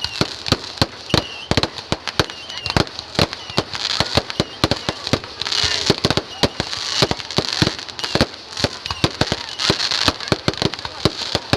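Fireworks and firecrackers going off in rapid succession: many sharp bangs and pops, several a second, with bursts of hissing crackle between them.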